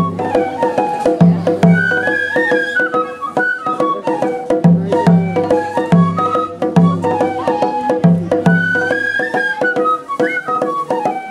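Japanese festival hayashi music: bamboo transverse flutes (shinobue) play a wavering melody over a taiko drum beaten in paired strokes, with sharp clicks keeping time. The drum drops out for about three seconds in the middle while the flutes carry on.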